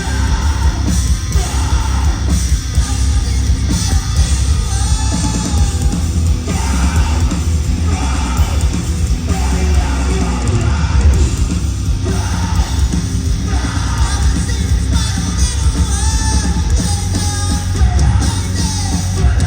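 Live rock band playing loud and distorted, with heavy bass and drums and a singer yelling and singing over it, recorded from the crowd.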